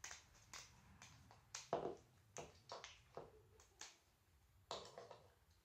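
Faint, scattered clicks and snaps of boiled crab shells being cracked and picked apart by hand, about a dozen over a few seconds.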